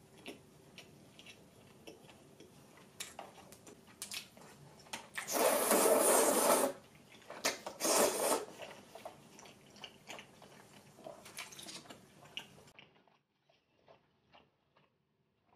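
Slurping udon noodles: two long loud slurps about five and seven and a half seconds in, with soft chewing and small mouth clicks around them.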